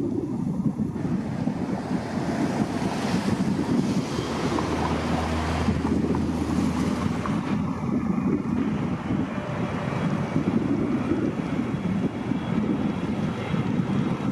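Wind buffeting the camera's microphone: a low, rushing noise that swells and dips unevenly.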